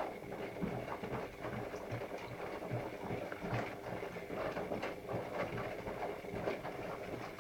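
Irregular light clicks and taps from a dog and kittens moving about and at their food on a hard floor, with a faint steady hum underneath.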